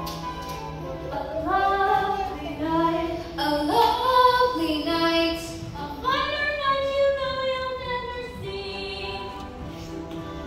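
Girls' voices singing a musical-theatre song, holding long notes, over music.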